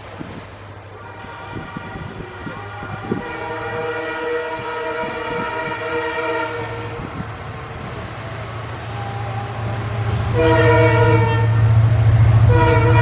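Indian Railways EMD diesel locomotive's air horn: one long blast starting about three seconds in, then, as a low engine drone grows louder, two louder blasts near the end.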